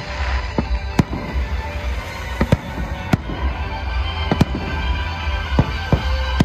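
Aerial fireworks shells bursting, with about a dozen sharp bangs at irregular intervals, over music with sustained tones and a heavy bass.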